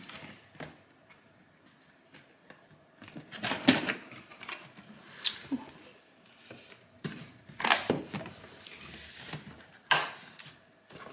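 Cardboard box flaps being pulled open and the packaging handled: scattered rustles, scrapes and light clicks, louder about four, eight and ten seconds in.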